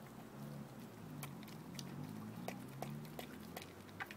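A dog chewing raw fish: a run of sharp, irregular crunches and bites over a low, steady drone.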